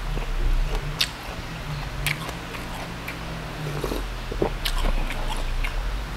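A person chewing crispy roast pork belly with crackling, wet mouth sounds and scattered sharp crunchy clicks, then sipping broth from a bowl about two-thirds of the way in.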